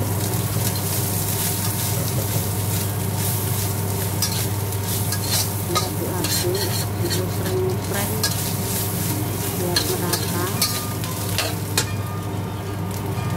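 Dried scallop and salted mustard greens sizzling in hot oil in a wok, stirred and scraped with a metal spatula that clicks and knocks against the pan now and then. A steady low hum runs underneath.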